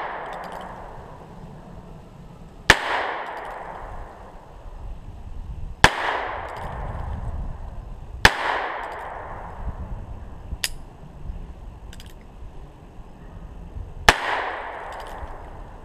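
Four shots from a Heritage Rough Rider single-action .22 revolver, most likely firing .22 Magnum rounds. The first three come about three seconds apart and a longer pause comes before the last. Each shot is followed by a short echo off the woods, and fainter clicks fall between the shots as the hammer is cocked by hand.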